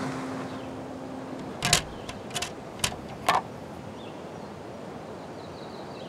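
A vinyl record being handled and laid on a turntable: several short light clicks and taps between about a second and a half and three seconds in. Fading guitar music trails off at the start.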